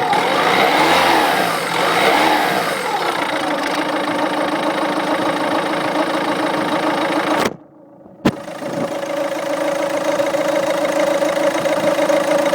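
Peugeot 207's 1.6 HDi four-cylinder turbodiesel revved up and down for a few seconds, then settling to a steady idle, with a short break in the sound about halfway. The owner is asking about two noises: one heard at idle, and a second, bearing-like one that comes through better under acceleration.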